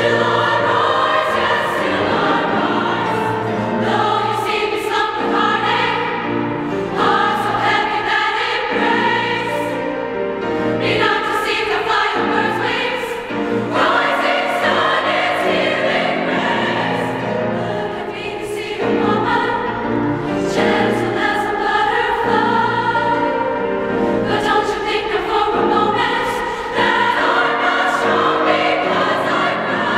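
Girls' high-school choir singing in phrases, many voices together, with brief dips between phrases. The choir sings in a large stone church.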